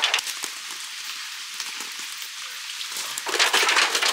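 Thin sheet metal of a dented roll-up stovepipe crinkling and scraping as a pipe ring is worked onto it by hand. A quieter stretch with a few clicks, then dense crackling starts again about three seconds in.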